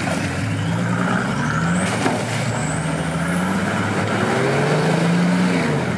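Off-road 4x4's engine running, its pitch rising and falling as it revs, with a thin high whine that climbs steadily for a few seconds.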